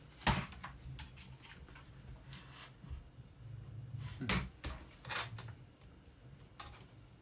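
Hard plastic and metal parts of a scrap appliance control being handled and worked at, giving a few sharp clicks and knocks: one just after the start, which is the loudest, and two more about four and five seconds in.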